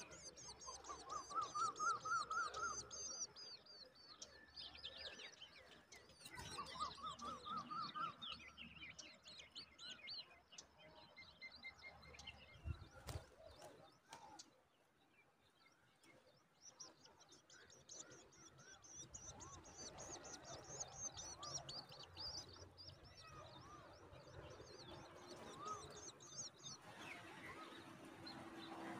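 Faint chorus of small birds chirping and calling, with high quick chirps throughout. Twice early on comes a rising run of quick notes, and there is a short lull just after the middle.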